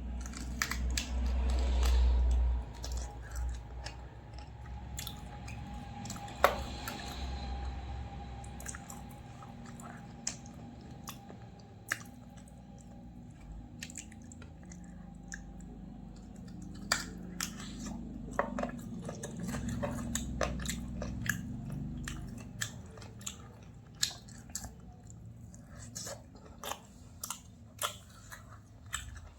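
Close-miked chewing and eating sounds from a person eating a meal by hand, with frequent short wet clicks and smacks. There is a dull low rumble for the first couple of seconds and again about two-thirds of the way through.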